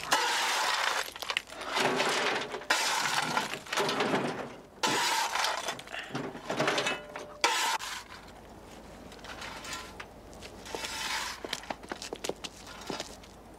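Loud crashing and clattering for the first eight seconds or so, a run of noisy bursts with some ringing, like things breaking. After that come quieter scattered clicks over a low hum.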